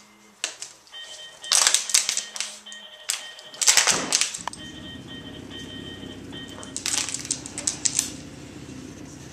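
Rapid clicking and rattling in four short bursts as a corgi scrambles about at play with her toys. A low steady hum starts about halfway through.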